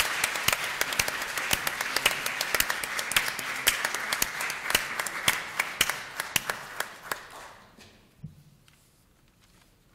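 Audience applauding, the clapping thinning out and dying away about seven to eight seconds in.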